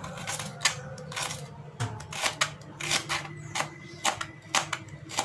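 Kitchen knife slicing small shallots on a plastic cutting board: a run of uneven, sharp taps, about three a second, as the blade cuts through and hits the board.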